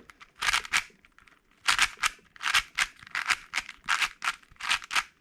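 Moyu MoFang JiaoShi RS4 M magnetic 4x4 speed cube being turned by hand: a quick run of plastic clacks, about three turns a second, with a short pause about a second in. The cube turns noisily, which its owner finds loud and puts down to too little lube.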